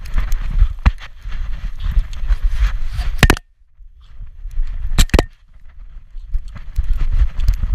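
Rubbing and knocking of a camera harness strapped to a dog's back as the dog moves: a low rumble with sharp clicks and knocks, broken by a brief lull about three and a half seconds in.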